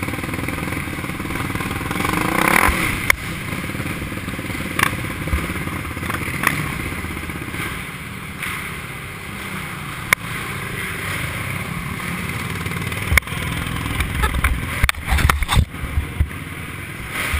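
Racing quad (ATV) engine running, heard through the onboard camera, with scattered clicks and clatter and a run of sharp knocks near the end.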